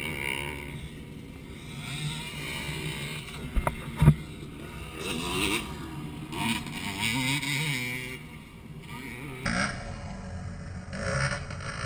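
Motocross dirt bike engines revving up and down as the bikes race around the track, with a sharp knock about four seconds in.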